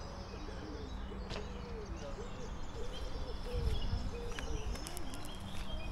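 Birds calling: a low cooing that repeats throughout, with a few faint high chirps, over a steady low hum.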